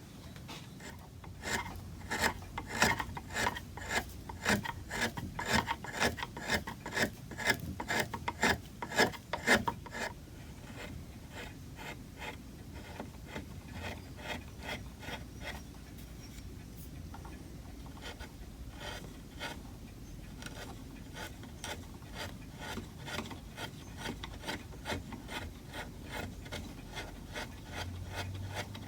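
Wood being worked by hand with quick, even abrading strokes, about three a second. The strokes are heavier for the first ten seconds or so and lighter after.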